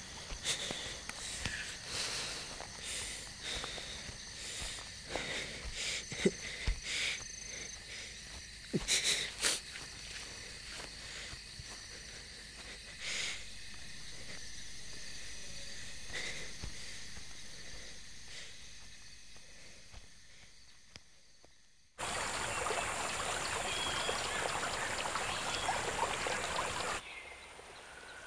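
A sparse, quiet ambience of scattered clicks and knocks with a few brief high tones, fading away over about twenty seconds. Then suddenly the loud, steady rush of a river flowing over rapids, dropping abruptly to a quieter flow about a second before the end.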